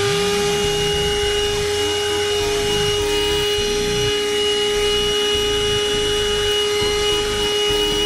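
Handheld corded car vacuum cleaner running at a steady speed with its nozzle on a rubber car floor mat, sucking up dirt: a constant motor whine over a hiss of rushing air.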